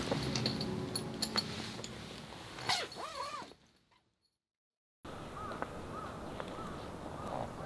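Small clicks and handling sounds over a low hum, with a brief wavering cry near three seconds. This is followed by a second of silence, then outdoor air with birds giving short calls over and over.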